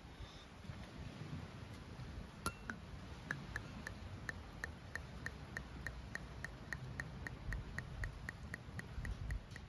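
A single sharp click, then steady ticking of about three ticks a second, over a faint low rumble.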